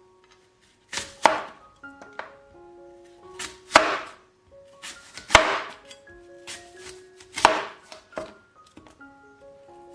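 Knife chopping on a cutting board: sharp chops at irregular intervals, a second or more apart, over soft background music.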